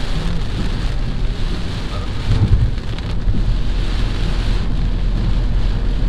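Heavy monsoon rain pelting a moving car's windshield and roof, heard from inside the cabin as a dense, steady hiss over a low rumble, swelling briefly about two and a half seconds in.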